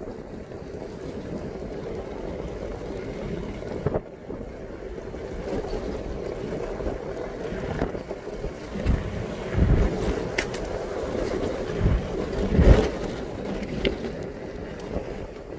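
Vehicle driving on a gravel road: steady rumble of tyres on gravel with wind on the microphone, and a few low thumps in the second half.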